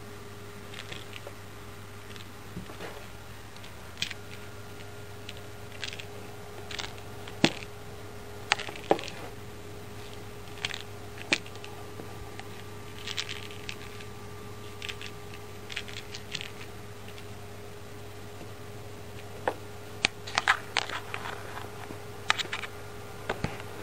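Scattered light clicks and scrapes over a steady low hum, the clicks bunched about twenty seconds in.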